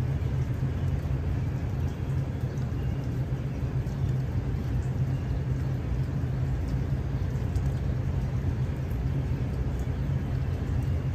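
Steady low rumble of a diesel locomotive's engine running, with the train standing or approaching slowly at the crossing.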